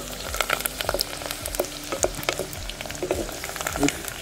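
Peeled garlic cloves sizzling and crackling in hot ghee in a clay pot, stirred with a wooden spatula.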